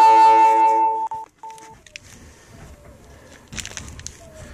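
A chime of several clear tones ringing together, cutting off about a second in, with one higher tone holding about half a second longer. Then faint rustling of plastic parts bags and cardboard.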